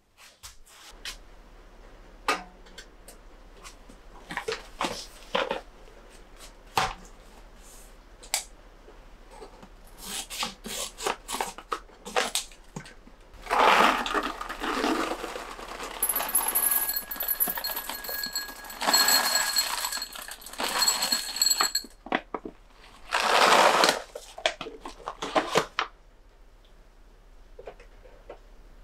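Chocolate pieces poured from a paper bag into a glass bowl, rattling against the glass for several seconds with a ringing tone through the latter part of the pour. Paper rustling and small clicks come before and after it.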